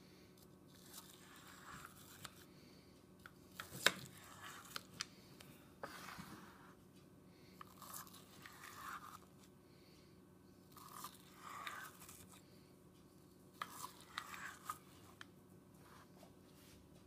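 Kitchen knife scoring partly frozen beet sorbet in a glass baking dish: short crunching, scraping strokes every second or two, with a sharp click about four seconds in.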